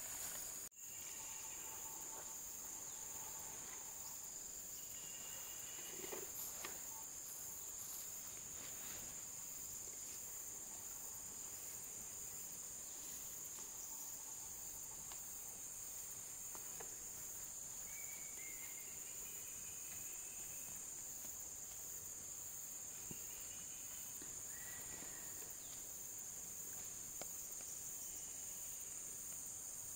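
A chorus of insects makes a steady, high-pitched drone in a grassy field. A few short chirps break in now and then.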